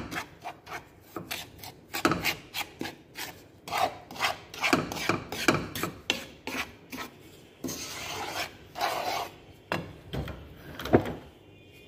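Wooden spatula stirring and scraping dry flour mixture around a stainless steel frying pan: a quick, irregular run of rasping scrapes.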